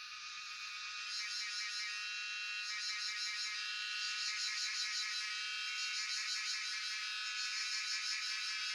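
Cicadas calling in chorus: a dense, shrill, high-pitched buzz with rapid pulsing that grows louder about a second in.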